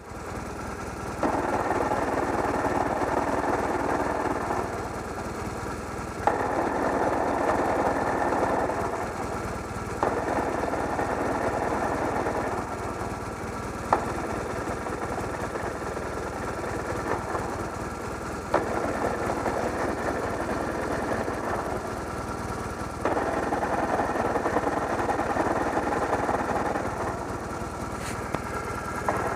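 2006 BMW R1200RT boxer-twin engine running, its sound stepping up and down between louder and quieter stretches every few seconds, with a few sharp clicks. An abnormal noise that the owner doubts is supposed to be there.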